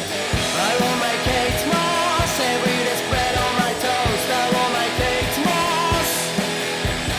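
Rock music: a band with a regular drum beat and a wavering melodic line over it.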